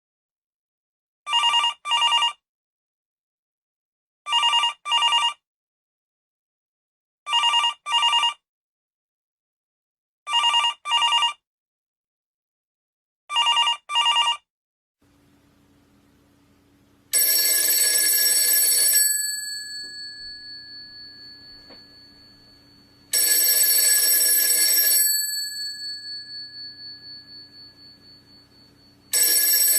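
Telephones ringing. First comes a ringer sounding double rings, a pair of short rings every three seconds, five times. Then a second telephone rings in long rings of about two seconds every six seconds, each ring leaving a tone that fades slowly.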